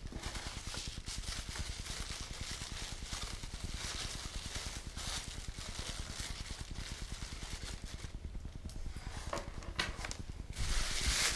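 Packaging rustling and crinkling, with small clicks and taps, as thin model parts are lifted out and handled.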